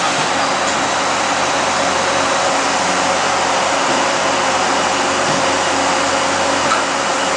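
Industrial machinery running with a steady whirring hiss, under a faint constant hum.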